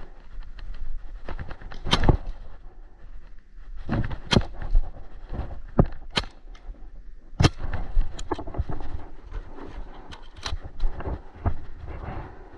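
Paintball markers firing: about ten sharp pops at uneven intervals, some in quick pairs, over rustling and handling noise.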